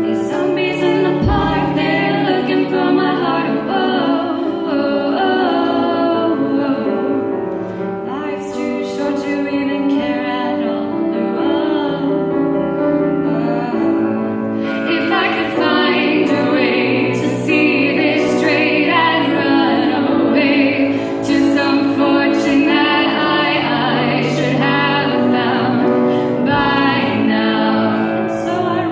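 A song with a woman singing, with harmony vocals over instrumental accompaniment; the music gets fuller and brighter about halfway through.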